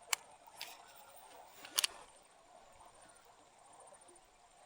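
A few sharp clicks, the last a quick double just under two seconds in, over a faint steady background hiss.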